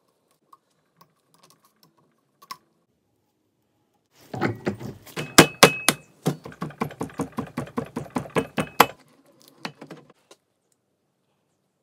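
Land Rover Discovery CV joint being tapped onto its splined driveshaft: a rapid, even run of knocks, about six a second, starting about four seconds in and lasting about five seconds. A few of the strikes are louder, with a short metallic ring.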